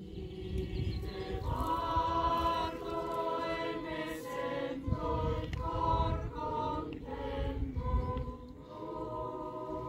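A choir of young people singing together outdoors, several voices holding long notes; the singing swells about a second and a half in and briefly thins near the end, over a low rumble.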